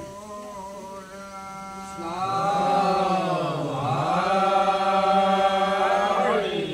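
Group of devotees chanting nam-prasanga together. A steady held note at first, then from about two seconds in a louder chorus whose pitch slides down and back up again before it ends just before the close.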